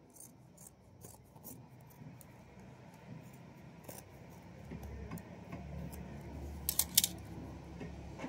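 Scissors snipping through cotton T-shirt fabric: a scattered series of short, quiet snips, with two louder snaps close together about seven seconds in, and the cloth rustling as it is handled.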